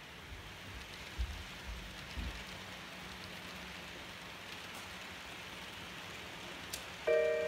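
Märklin model freight train running along the layout's metal track with a steady rolling hiss, and two soft low thumps a second or two in. Near the end a chime of several ringing notes begins.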